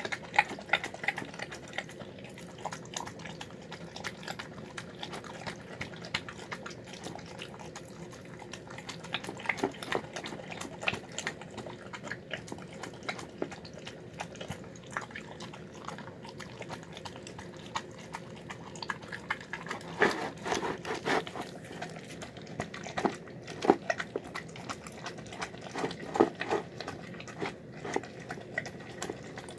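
A dog eating a soft, wet meal of chicken, rice and beans: a steady run of short, wet chewing and mouth smacks with scattered clicks, growing busier and louder about two-thirds of the way through.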